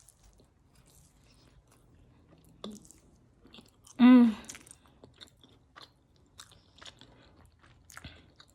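A person chewing and biting food close to the microphone: scattered small crunches and mouth clicks, with a short hummed vocal sound about four seconds in.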